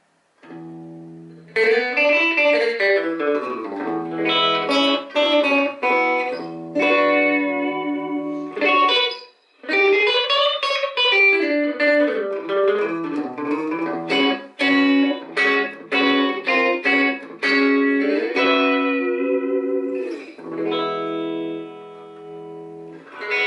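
Clean hollow-body electric guitar played through a freshly repaired Electra EP-401 digital delay as a playing test, picked notes and chords ringing on. Some notes swoop up and down in pitch at about two seconds in and again about ten seconds in.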